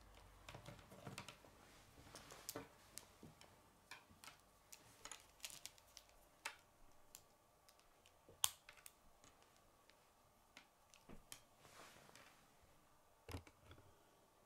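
Faint plastic clicks and taps of K'nex pieces being handled and pressed together, coming irregularly, with one sharper snap about eight and a half seconds in.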